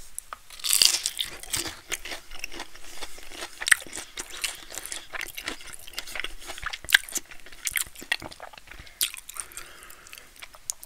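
Breaded fried pickle spear being bitten and chewed close to the microphone, its fried coating crunching sharply again and again, with the loudest crunches a little under 4 seconds in and about 7 seconds in.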